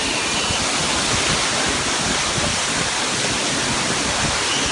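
Waterfall crashing steadily, a dense, even rush of falling water.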